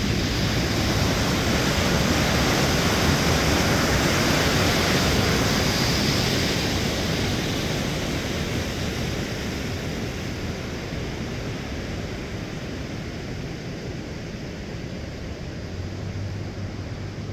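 River water rushing over a low weir, a steady white-water hiss that swells a few seconds in and then slowly fades.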